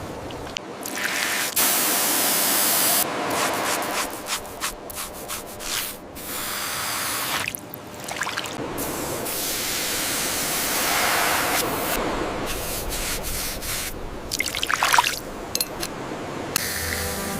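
Bursts of hissing spray and wet rubbing as the corrosion and dirt are cleaned off a bronze artifact. The sounds start and stop abruptly several times, with the loudest steady spray at about two seconds in.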